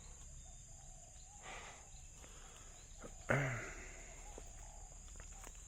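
Steady high-pitched drone of insects such as crickets or cicadas, with faint chirps and rustling, and one short, louder rustle about three seconds in.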